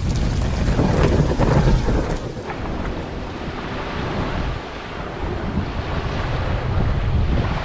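Continuous rushing ambient noise with a heavy, uneven low rumble that swells and eases, like wind or surf.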